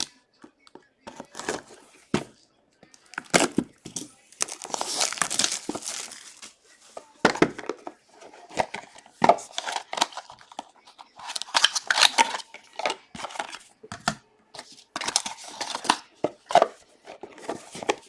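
Leaf Metal trading-card pack wrappers being torn open and crinkled, in a series of rips and rustles with sharp crackles. The longest tear comes about four seconds in.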